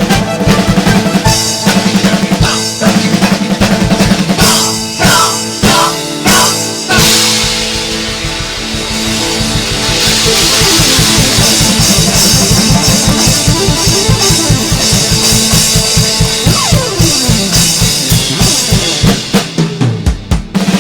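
Live band music driven by a drum kit: fast drum strokes and rolls over steady keyboard tones. There is a long cymbal wash in the middle and a falling pitch glide near the end, before a last run of rapid hits.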